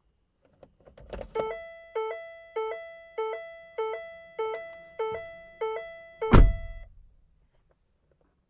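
A car's door-open warning chime repeats about every 0.6 seconds, each a short low note stepping up to a longer higher one, signalling that a door is open. It starts after a few faint clicks, sounds about nine times, and stops at once with a loud thunk a little past six seconds, which is louder than the chime.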